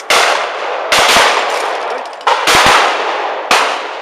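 Shotgun shots at clay targets: four sharp reports roughly a second apart, each ringing on and dying away before the next.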